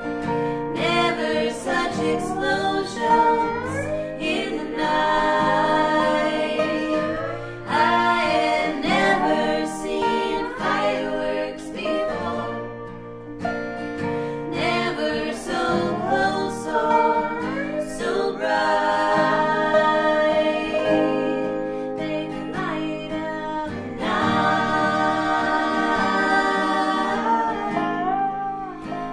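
Three women singing an Americana song in close three-part harmony, with acoustic guitar and dobro accompaniment.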